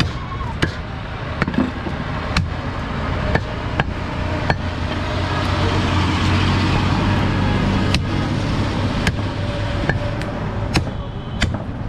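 Heavy cleaver chopping goat meat and bone on a wooden log block: about a dozen sharp, irregular chops, with a pause of a few seconds in the middle. A steady traffic rumble runs underneath and swells during the pause.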